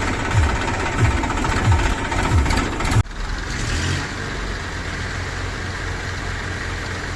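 Heavy diesel engine running under load with a rhythmic low throb about every 0.7 s. About three seconds in the sound cuts abruptly to a smoother, steady idle.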